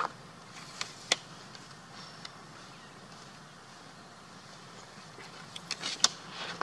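Steady low outdoor hum with a few sharp clicks: one about a second in and a quick cluster near the end.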